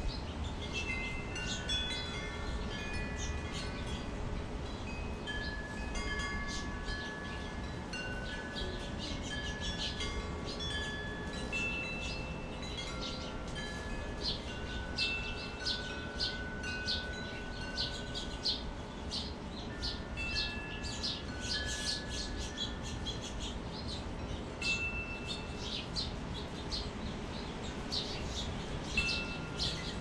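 Wind chimes ringing gently, many clear overlapping tones sounding and dying away one after another, with short bird chirps scattered throughout.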